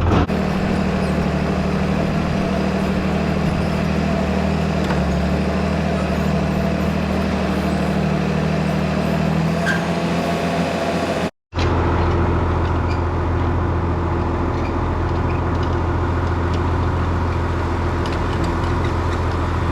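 John Deere 4030 tractor's diesel engine running steadily during hitching. It cuts out for a split second about eleven seconds in, then carries on.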